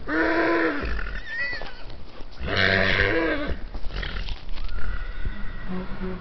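A horse whinnying twice: two loud, pitched calls, each about a second long, about two and a half seconds apart.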